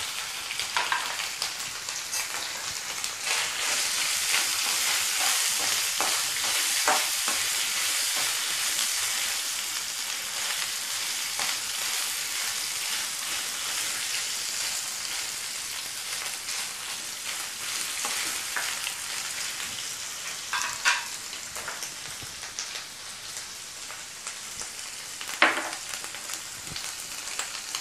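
Coconut pieces, dried red chillies, garlic and curry leaves sizzling in a little groundnut oil in a kadai while being roasted and stirred with a spatula. The sizzle is loudest in the first third and eases off, with a few sharp spatula scrapes against the pan later on.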